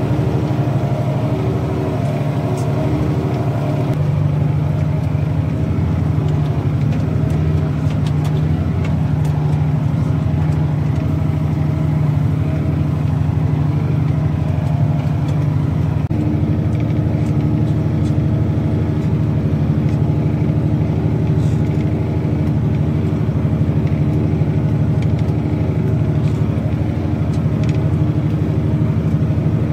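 Tractor's diesel engine running steadily under load as it pulls a four-furrow plough through the soil, its note shifting slightly about halfway through.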